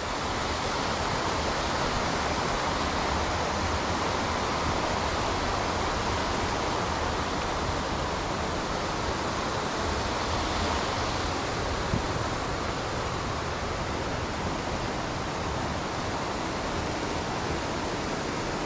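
Steady rushing water of a waterfall and brook.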